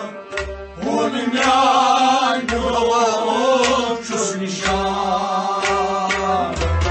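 Male voice singing a Kashmiri Sufi song, coming in about a second in with one long, ornamented line that bends up and down, over plucked-string accompaniment.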